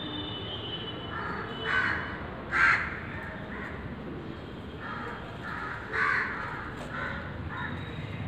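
Short, harsh animal calls, repeated about eight times at uneven intervals. The loudest come about two and a half seconds and six seconds in.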